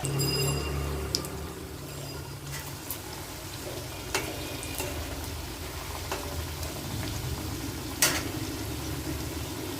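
Stuffed kochuri deep-frying slowly in oil in a karahi over a low gas flame: a steady sizzle, broken by a few sharp clicks, the loudest about eight seconds in.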